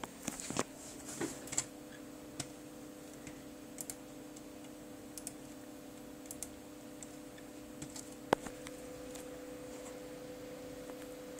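Scattered clicks of computer mouse buttons: a cluster in the first two seconds, a few lighter ones after, and one sharp click a little past eight seconds in. A steady low hum runs underneath.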